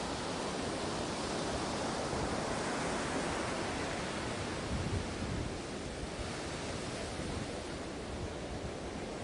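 Sea waves washing on the shore, a steady hiss of surf that swells and eases slowly over several seconds.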